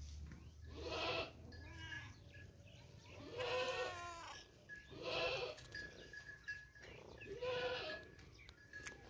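Repeated animal calls: four drawn-out, wavering cries about two seconds apart, with fainter calls between them.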